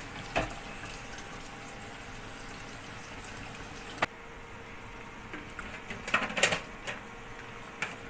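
Tap water running and splashing into a plastic water-filter pitcher. About halfway through, a click, and the upper hiss of the stream drops away. Then come a few sharp plastic knocks and clatters as the pitcher is handled and set down in a plastic dish rack.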